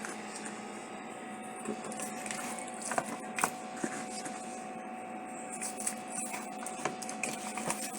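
A steady mechanical hum with a few light clicks and taps scattered through it.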